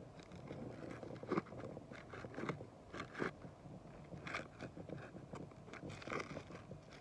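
Irregular scrapes and crackles of stiff, brittle asphalt roof shingles being lifted and handled.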